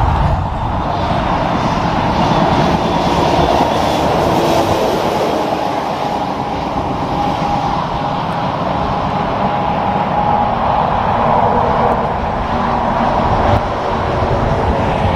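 Peterbilt semi truck pulling a tanker trailer passes on the highway: a steady, loud rumble of diesel engine and tyres on the road. Near the end a second tractor-trailer goes by.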